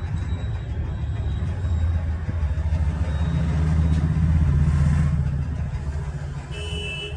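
A low rumble like a road vehicle passing, building to its loudest about four to five seconds in and then easing off. A brief high beeping comes near the end.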